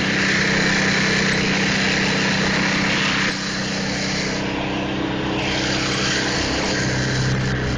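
Honda engine on a Craftsman Eager-1 snowblower running steadily under load, with a rushing hiss of snow going through the auger and chute. The hiss drops off about three seconds in, and the engine note shifts lower near the end.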